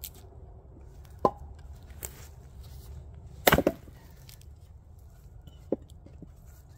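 A heavy splitting axe striking a firewood round on a chopping block, the loudest blow about halfway through, followed at once by a few quick knocks as the wood splits and falls. Lighter wooden knocks come about a second in and again near the end.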